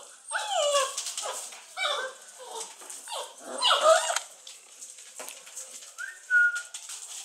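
Basset Hound puppies, about six weeks old, whining and yelping: several high cries that slide down in pitch over the first four seconds, the loudest about four seconds in.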